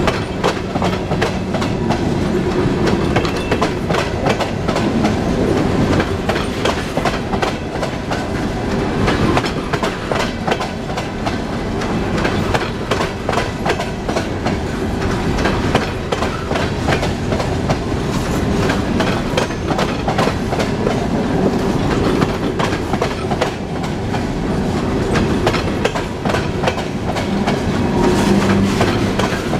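Empty coal hopper cars rolling past close by, their steel wheels clicking and clunking over the rail joints in a rapid, uneven rhythm over a steady rumble.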